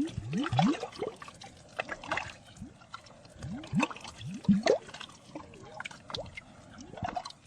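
Air bubbles rising through water, each giving a short blup that rises in pitch, coming in irregular clusters with a lull in the middle.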